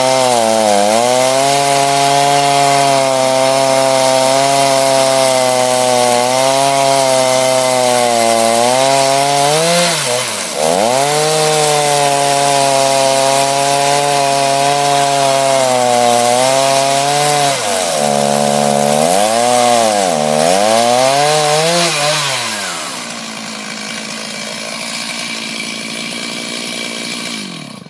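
Stihl Farm Boss two-stroke chainsaw with an 18-inch bar and ripping chain, running at full throttle under load as it rips a walnut log lengthwise in an Alaskan chainsaw mill. The engine pitch dips briefly once and then sags and recovers three times as the cut finishes. It drops to idle about three-quarters of the way through and is switched off right at the end.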